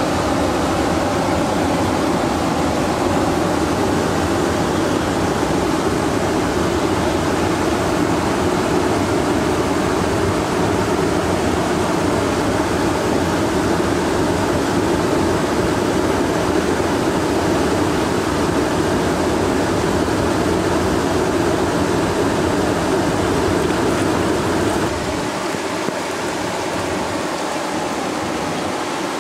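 Steady rush of river water pouring over a weir, turning a little quieter with less low rumble near the end.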